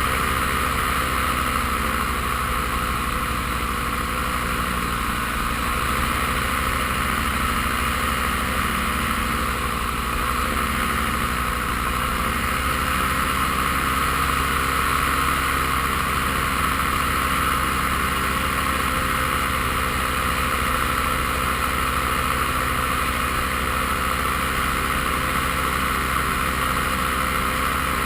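Paramotor engine and propeller running steadily at an even pitch.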